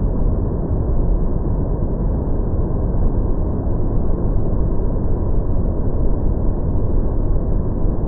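Fukuroda Falls, a large waterfall swollen with rainy-season water, heard up close: a loud, steady rush of falling water, deepest at the bottom end, that does not let up.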